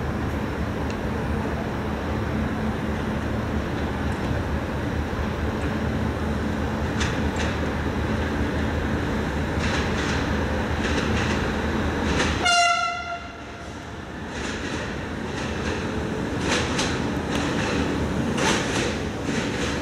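Steady rumble of trains at a station, then a short single-note horn blast from an arriving red diesel multiple unit about two-thirds of the way through, followed by a run of sharp clicks as its wheels pass over rail joints and points.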